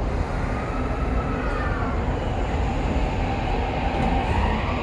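Toei 5500 series subway train pulling away, heard from inside the car: the Mitsubishi full-SiC VVVF inverter and traction motors whine over a steady low running rumble. The whine sags a little, then from about three and a half seconds in climbs steadily as the train accelerates.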